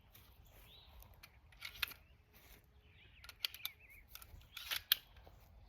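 Scattered sharp clicks and snaps of handwork on the greenhouse plastic, one about two seconds in and a cluster near the end, with faint bird chirps between them.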